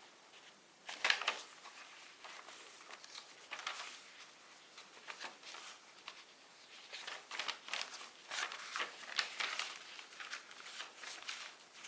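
Paper and card of a handmade junk journal being handled and turned, giving short irregular rustles, the loudest about a second in.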